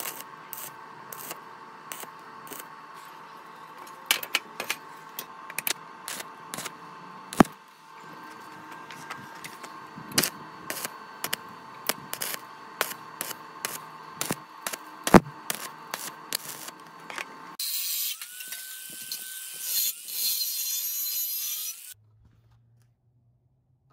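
Stick (shielded metal arc) welding of steel square tubing: the arc crackles and spits irregularly over a steady buzz, with sharp pops now and then. About 17 seconds in the arc stops, and a different high hissing, scraping sound with a rising then falling tone follows for a few seconds before cutting off.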